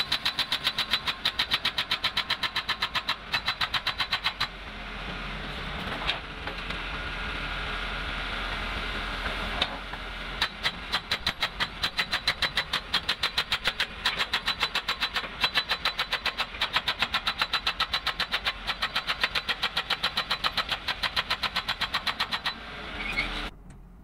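Excavator-mounted hydraulic breaker hammering rock in a rapid, even run of blows, several a second. The blows stop for about six seconds a few seconds in, leaving a steady machine noise, then resume until shortly before the end.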